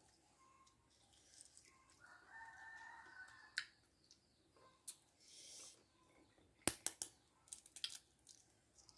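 A rooster crowing faintly, a little after two seconds in. Near seven seconds in comes a quick run of sharp clicks as a spoon cracks the shells of boiled balut quail eggs, then a few lighter clicks.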